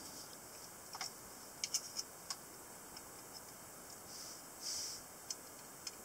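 Small, sharp metal clicks and light rubbing from handling a closed Italian stiletto automatic knife's metal bolster and crossguard. A quick cluster of clicks comes about one to two seconds in, two soft scraping swells past the middle, and a couple more clicks near the end.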